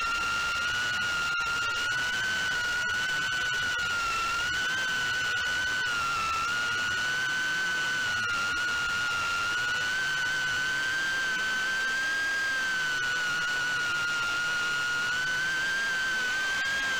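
FPV quadcopter's brushless motors and propellers whining steadily in flight, the pitch wavering slightly with throttle and rising near the end.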